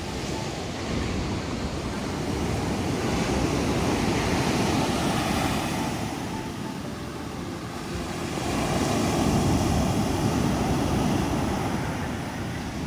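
Ocean surf breaking and washing up the beach, rising twice in long swells, with wind buffeting the microphone.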